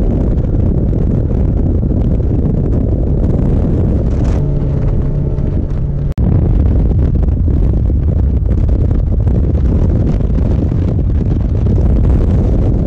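Heavy wind rumble on the microphone while a small boat runs under motor, a loud steady low roar. A steady pitched hum comes through for about a second and a half near the middle, and the sound breaks off for an instant about six seconds in.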